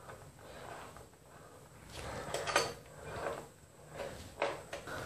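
Motorcycle indicator wires and their bullet connectors being pulled through a hole in the body panel under the seat: soft scraping and rustling in a few short bursts, the loudest about two and a half seconds in.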